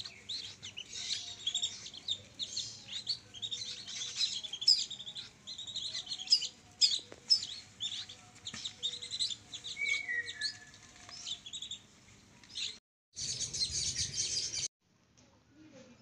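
A flock of whistling duck ducklings peeping constantly, many short high peeps overlapping. About thirteen seconds in the peeping breaks off briefly, comes back denser for a second or so, then drops to faint.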